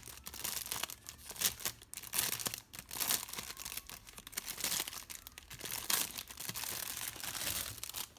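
Packaging being opened by hand: irregular crinkling, rustling and tearing throughout, with sharp crackles.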